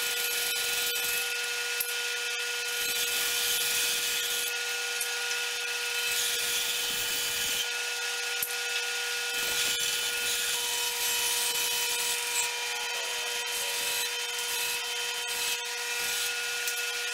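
Bandsaw running with a steady whine while its blade cuts a small log into rounds, the cutting noise rising and falling as the wood is fed through.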